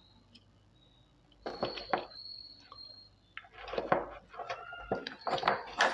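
Small hard parts and tools clicking and clattering on a work bench during LED bulb repair, starting about a second and a half in with one sharper knock. A thin, high, steady tone runs under the first clicks for about two seconds, and short squeaks come later.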